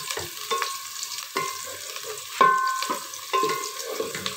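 Wooden spoon stirring sliced onions frying in a large metal pot: repeated scrapes and knocks on the pot, each ringing briefly, over a steady sizzle, the loudest knock about two and a half seconds in. The onions are being fried to golden brown.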